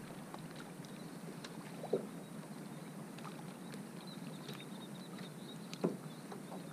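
Small waves lapping against a small metal boat's hull, with two short water slaps, one about two seconds in and one near six seconds, and faint scattered ticks.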